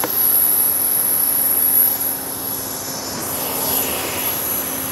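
Business-jet turbine engines running on an airport ramp: a steady high-pitched whine over a broad even rush, with a low steady hum beneath.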